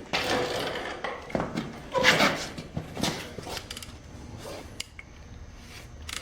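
Metal hand tools being handled: a few clattering knocks and clinks with lighter clicks between.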